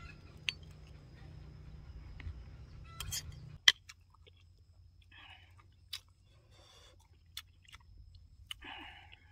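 A person eating a soupy algae laab with a metal spoon: slurping and chewing, with sharp clicks of the spoon against the enamel bowl, the loudest a little under four seconds in.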